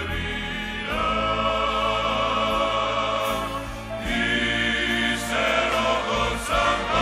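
Male choir singing long-held chords with orchestral accompaniment, including strings. The chords shift about a second in and again about four seconds in.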